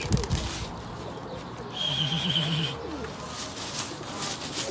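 Domestic pigeons cooing. About two seconds in, a steady high whistle-like tone lasts about a second.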